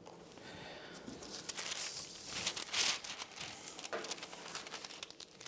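Sheets of greaseproof paper rustling and crinkling as they are handled, loudest about two to three seconds in.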